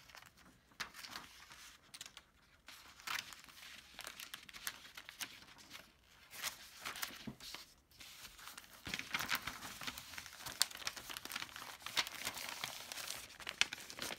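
A plastic sheet protector crinkling and paper rustling as a printed sheet is worked inside it beneath stuck-on plastic wipes-container lids, with many small sharp clicks and taps. The handling gets busier and louder about two-thirds of the way through.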